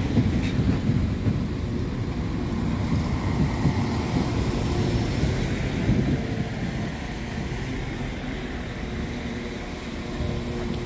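NI Railways Class 4000 diesel multiple unit running into the platform and slowing to a stop. Its wheel and engine rumble is loud for about the first six seconds, then eases, leaving a steady engine hum.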